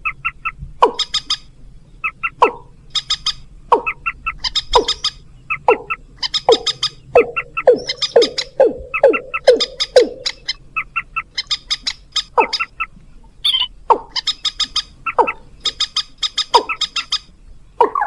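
Looped bird-lure recording of rail calls, mandar (moorhen) and ayam-ayaman (watercock): sharp downward-sliding call notes, about one to two a second, alternating with rapid ticking trills.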